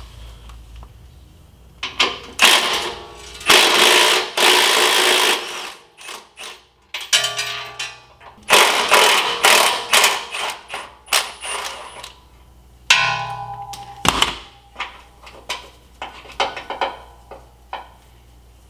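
A steel pry bar levering rubber exhaust hangers off their metal rods under a pickup. It makes clanks and sharp knocks, with two longer stretches of scraping a couple of seconds each.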